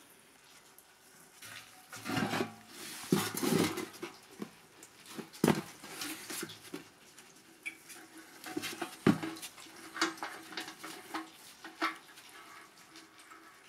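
Irregular knocks, clinks and scrapes as a rusty steel motorcycle fuel tank is handled in a plastic tub and its small fuel tap is worked by hand. There are two sharp knocks, one about halfway through and one a few seconds later.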